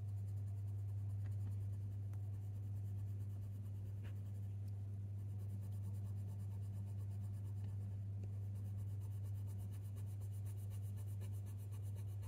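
Colour pencil (Caran d'Ache Luminance, Silver Grey) stroking across hot-press watercolour paper in small, light, continuous scratching strokes as a layer is built up, over a steady low hum.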